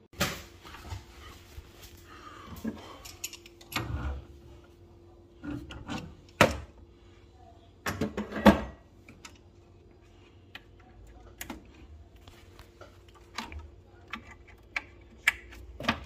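Intermittent clicks, knocks and metallic clatter of boiler parts being handled while a replacement fan is fitted into a Baxi boiler, over a faint steady hum.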